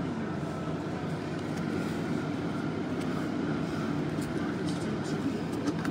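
Steady low hum and hiss of background machine noise, with a few faint clicks from trading cards being handled.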